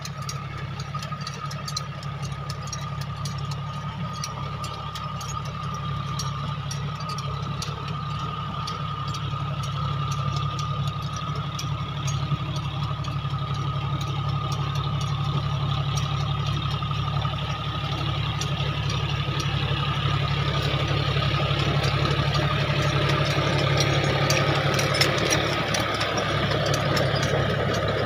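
John Deere tractor's diesel engine running under load as it drives a rotavator through hard, dry soil, with a steady whine above the engine note; it grows louder in the second half.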